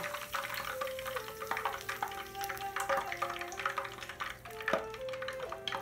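Basil leaves sizzling in hot oil in a frying pan, stirred with wooden chopsticks that click against the pan throughout. A slow melody of held notes plays softly underneath.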